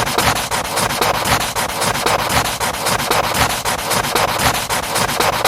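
A loud, rough rubbing or scratching noise made of rapid, closely spaced strokes, which cuts off abruptly at the end.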